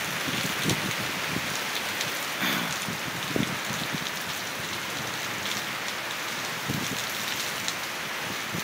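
Heavy rain pouring down in a severe thunderstorm: a steady hiss with scattered sharper hits of drops and splashes.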